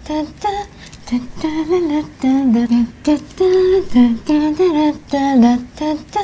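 Background music carried by a woman's wordless vocal melody, hummed in short phrases with brief pauses.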